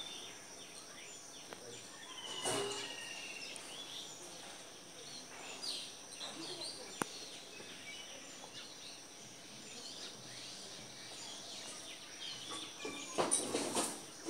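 Outdoor ambience with scattered bird chirps, including a short trill about two and a half seconds in, over a steady high hiss. A few brief clicks and rustles, with a small cluster near the end.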